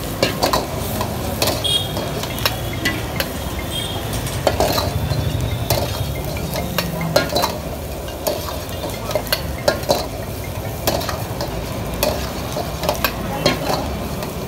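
Steel ladle repeatedly knocking and scraping against a wok as food is stir-fried and tossed over a high gas flame, with a steady sizzle underneath. The knocks come irregularly, several a second.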